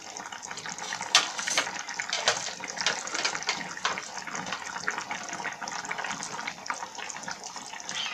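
A pan of potato and bean-seed curry simmering, with a steady bubbling and many small pops.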